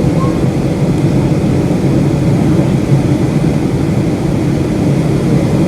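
Steady low rumble of a Boeing 757-200's cabin in flight during the descent: engine and airflow noise running evenly.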